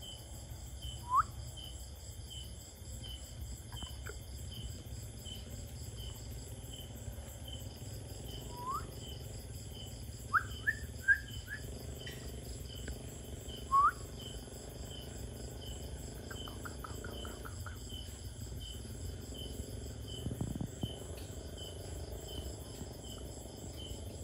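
Night chorus of crickets and other insects, a steady pulsing trill at about two beats a second over a low hum. Several short rising chirps are the loudest sounds: one about a second in, then a cluster between about 8 and 14 seconds. A quick run of clicks follows a little later.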